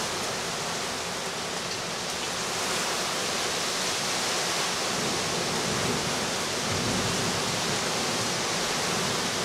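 Heavy rain pouring steadily in a wind storm, an even rushing hiss, with a brief low rumble swelling about seven seconds in.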